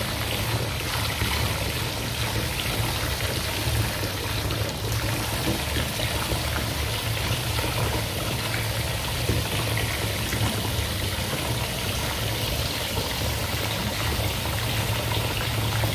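Bath tap running steadily, water pouring into a filling bathtub, with a low rumble beneath the splashing.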